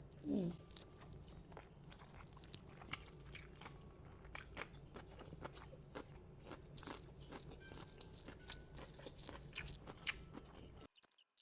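Close-miked chewing of crunchy food: irregular crisp crunches and mouth clicks. A short vocal sound falling in pitch comes just at the start.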